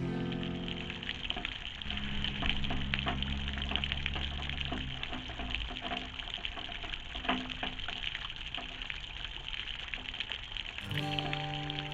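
Light precipitation pattering, many small scattered ticks over a steady hiss. Faint background music fades out in the first few seconds and comes back near the end.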